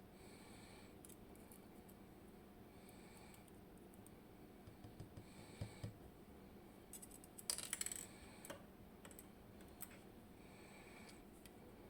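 Faint, scattered small clicks from a KABA 6 lock being taken apart as its pins are removed, with a short quick flurry of clicks a little past the middle.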